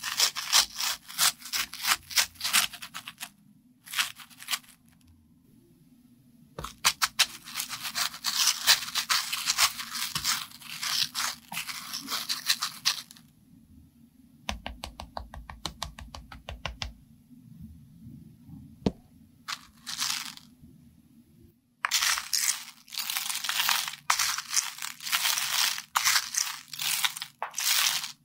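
Small hard candy-coated chocolates clattering and rattling against each other and a plastic toy tub as doll figures and a toy boat are pushed into them, in several bursts of dense clicking. In the middle there is a quieter stretch of fast, even ticking.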